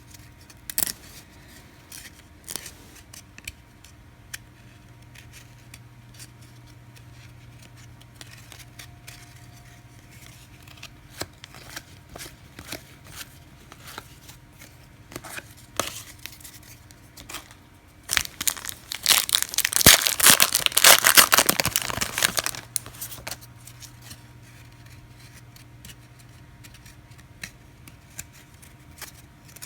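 Trading cards being handled, with scattered light clicks and slides, then about 18 seconds in a card pack's wrapper is torn open: a loud crinkling tear lasting about five seconds.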